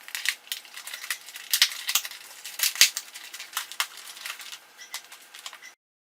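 Kitchen utensils clicking and clattering against dishes in a quick, irregular run of sharp knocks, loudest in the middle, then cutting off abruptly near the end.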